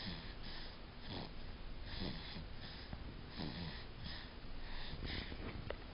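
Snoring: a string of short, rough breaths in and out, coming about once a second.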